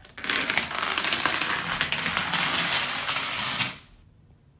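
Rapid, dense rattling clatter of many small hard objects, with a high ring over it, lasting about three and a half seconds and cutting off suddenly.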